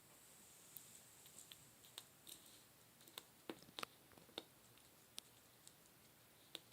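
A cat batting and pawing at a pen: scattered light clicks and taps of the pen knocking on a hard surface, most of them in a quick cluster a little past the middle.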